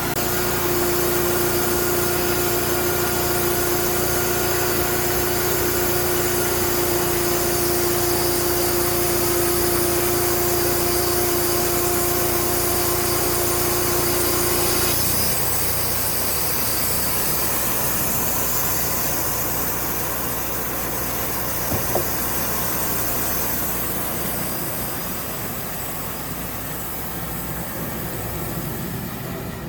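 Wood-Mizer band sawmill running, its engine-driven band blade sawing through a white oak log. A steady pitched hum rides over the running for about the first half, then stops, leaving the engine and saw noise alone, with one short click a little past two-thirds of the way.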